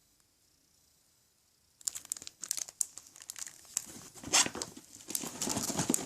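Packaging crinkling and rustling as it is handled, starting about two seconds in after near silence, with sharp crackles and a louder burst near the middle.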